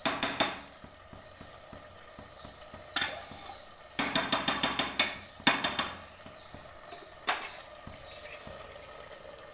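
A metal spoon scraping and knocking against a pressure cooker pot in short bursts as grated carrots are stirred, over a faint steady sizzle of the carrots simmering in their own liquid.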